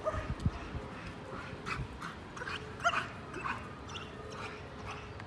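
German shepherd whining with short high-pitched yips now and then.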